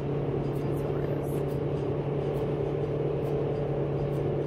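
Car cabin noise while driving at highway speed: a steady engine drone with tyre and road rumble.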